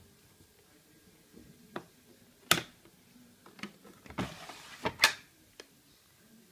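Several sharp clicks and knocks with a short scraping rustle between them, the two loudest about two and a half seconds apart, as the door of a front-loading washing machine is unlatched and handled.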